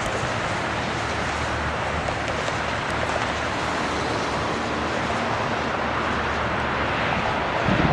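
Boeing 747 on its takeoff roll: a steady jet-engine and rolling rumble, with a deeper, louder rumble coming in near the end.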